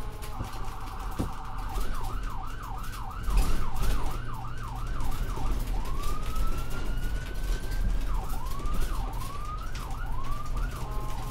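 Electronic siren cycling through its tones: a rapid warble, then a string of fast up-and-down yelps, one long rising wail, and a few slower sweeps near the end.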